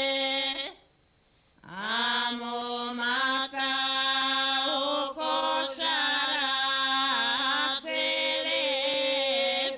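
Traditional Macedonian harvest song sung in drone style: voices hold a steady drone note while another voice line moves and wavers above it. The singers break off briefly about a second in, then slide up into the note and sing on, with short breath pauses.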